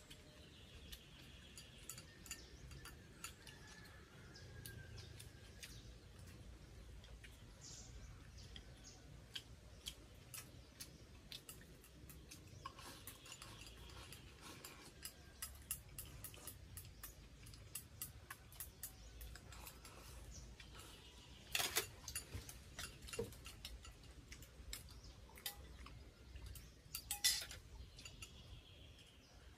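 Chopsticks clicking and tapping against bowls and a metal tray while eating, soft scattered clinks with two louder ones near the end. Faint birds chirping in the background.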